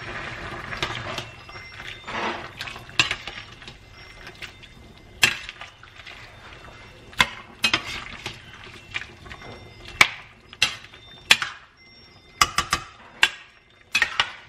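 A metal spoon stirring chunks of pork in sauce in a stainless steel pan, clinking and scraping against the pan's sides at irregular intervals.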